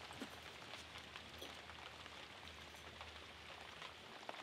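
Faint steady hiss with a few soft ticks, close to silence.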